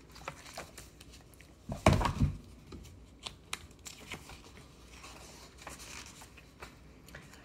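Paper being handled: rustling and crinkling with many small clicks, and a couple of loud knocks about two seconds in.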